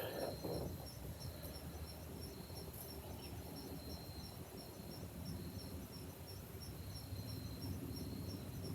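Faint outdoor ambience with insects chirping: a steady high note with a regular pulsing chirp over it.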